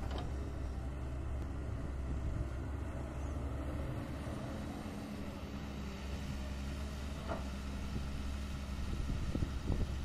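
Caterpillar 320D2 hydraulic excavator's diesel engine running steadily as the machine swings, with a couple of short knocks in the second half.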